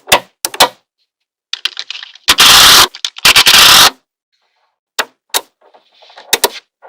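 Small magnetic balls clicking sharply as they snap together. In the middle come two loud stretches of dense rattling, the first about half a second and the second nearly a second long, as many balls clatter against each other at once. A few more single clicks follow near the end.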